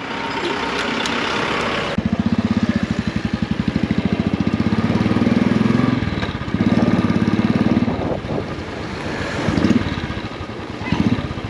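Motorcycle engine running with a fast, even putter that starts suddenly about two seconds in and dips briefly partway through, after a rushing hiss.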